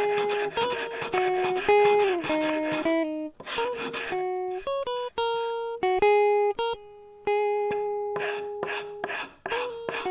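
Background music: a melody of plucked guitar notes, each ringing and fading, with short pauses about three seconds in and again near seven seconds.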